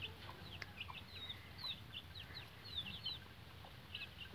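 Young chicks peeping: a continuous run of short, high-pitched cheeps, several a second, mostly dropping in pitch.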